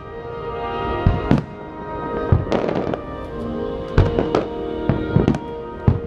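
Fireworks shells bursting in a rapid volley, about eight sharp bangs across a few seconds, over the show's musical soundtrack with held tones.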